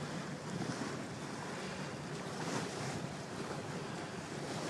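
Sailboat under way: wind buffeting the microphone and water rushing past the hull, with the auxiliary engine's steady low drone underneath as the ketch motorsails.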